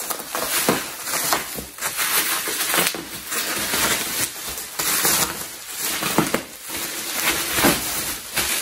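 Plastic bubble wrap rustling and crinkling in irregular swishes as a wrapped laptop is handled and pulled out of its box.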